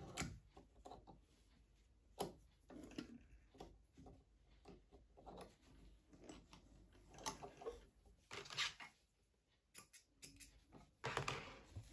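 Faint scattered clicks and rustles of hands handling cotton fabric in a wooden embroidery hoop, lifting it out from under the presser foot of a stopped sewing machine and pulling the thread free. A brief louder patch of rustling comes near the end.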